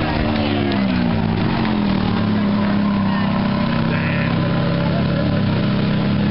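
Mid-engined Ferrari V8 of a red open-top spider pulling slowly past at low revs. Its pitch falls over the first second or so, then it holds a steady low note.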